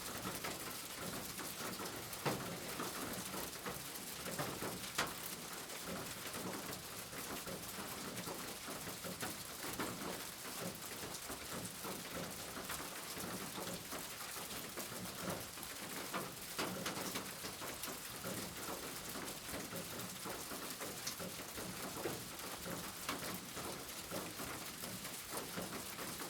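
Steady rain falling, with a few sharper drops striking close by.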